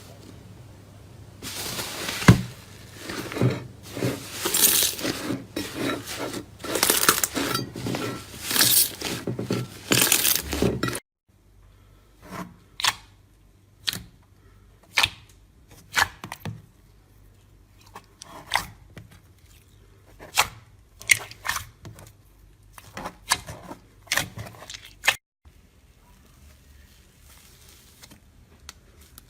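ASMR crunching and crackling: about ten seconds of dense crackling, then, after a sudden cut, separate sharp crunches roughly once a second that stop near the end.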